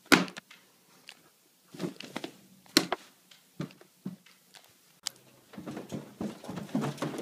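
A few scattered light clicks and taps, each short and sharp, with quiet between them, as of a hand handling things close to the microphone; faint rustling near the end.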